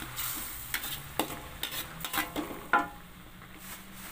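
Metal spatula scraping and knocking against an aluminium wok as onions sizzle in a thick sauce. There are several sharp scrapes in the first three seconds, after which the sizzling gets quieter.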